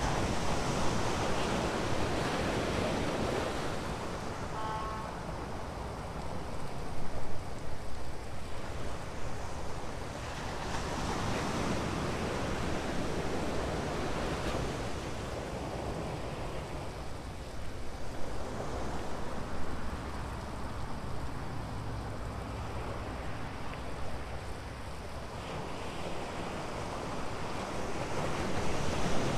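Ocean surf breaking on a beach, a steady wash that swells with each breaking wave about every eight seconds. A brief faint tone sounds once about five seconds in.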